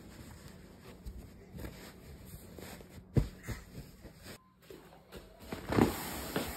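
Quilted cotton blanket being handled and smoothed: soft fabric rustling with small knocks, one sharp knock about three seconds in, and a louder rustle and thump near the end.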